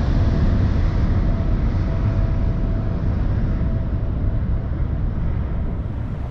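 Boeing 777-300ER jet engines at takeoff power: a loud, deep rumble with a faint steady whine, slowly fading as the airliner climbs away.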